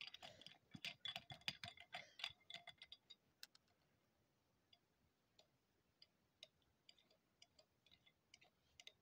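Faint light clicks and scratchy taps of a small toy being rubbed over a clear plastic box to scrub it, dense for the first three seconds, then only scattered single ticks.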